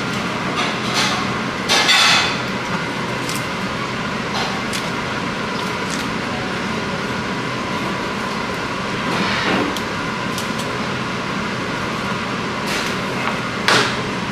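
Steady whirring hum of kitchen machinery, with a few short knife scrapes and taps on a plastic cutting board as a yellowfin tuna is cut up; the sharpest come about two seconds in and near the end.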